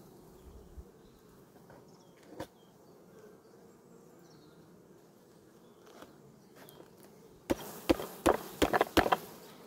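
Faint, steady hum of honeybees over an open hive. A single knock comes about two and a half seconds in, and near the end there is a rapid run of sharp clicks and knocks as a wooden comb frame is handled and lifted from the hive.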